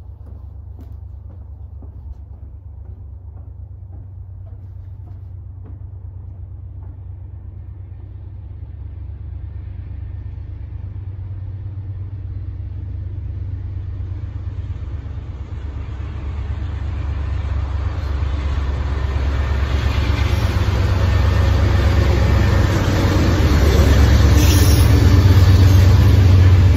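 Low rumble of an approaching vehicle, growing steadily louder throughout, with a hiss building on top over the second half as it nears.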